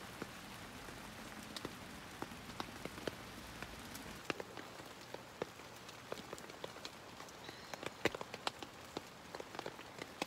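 Rain falling on the tent and tarp fabric, heard from inside the tent: a steady hiss with many irregular drops tapping on the nylon.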